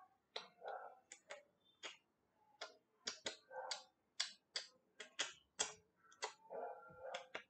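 Faint, irregular sharp clicks and taps, a few a second, with short scuffs between them: a paintbrush dabbing and tapping against a small hard cast piece as it is painted by hand.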